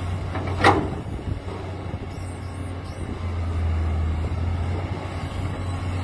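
Heavy diesel engine of a Cat E200B crawler excavator running steadily with a low hum, and one sharp metallic clank about half a second in.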